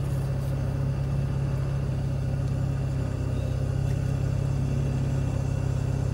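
Jeep Wrangler's engine idling steadily while the vehicle is stopped, heard from inside the cabin as a low, even hum.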